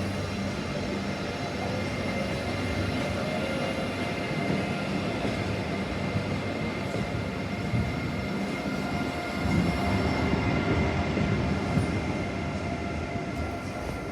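A train running at a station platform with a steady high tone and a low hum. It gets louder about two-thirds of the way through.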